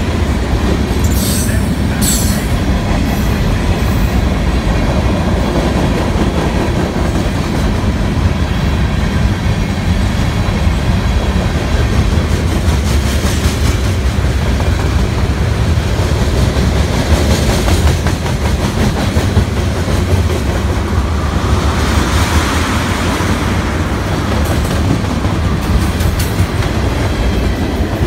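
Freight cars of a manifest train rolling past close by: a loud, steady rumble of steel wheels on rail. Two brief sharp high-pitched screeches come about one and two seconds in.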